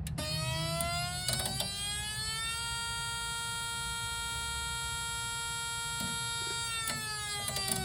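Whelen Vortex R4 siren control board sounding its Alert signal, an electronic siren tone. The pitch rises for about two and a half seconds, holds steady, then begins to fall away near the end.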